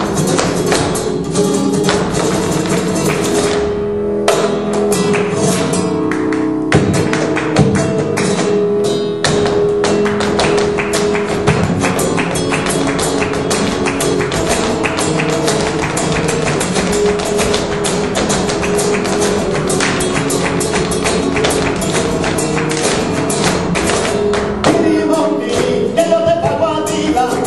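Flamenco music in the alegrías style, guitar with singing, over a dense run of rapid, sharp percussive taps.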